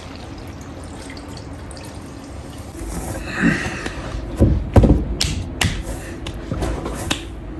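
Wet clay squelching under hands on a pottery wheel head. A little under three seconds in it changes to a lump of clay being wedged on a wooden table: squishes and a series of dull thumps as the clay is pushed down and rocked over, the heaviest near the middle.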